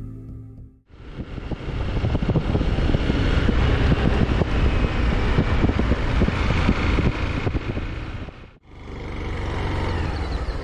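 Motorbike on the move: engine running under steady wind rush and buffeting on the microphone, broken by a brief drop-out near the end.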